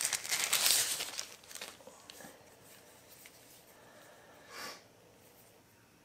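Thin plastic wrapping crinkling and rustling as it is pulled off a flashlight. It is loudest in the first second and a half, then fades to faint handling, with one short rustle near the end.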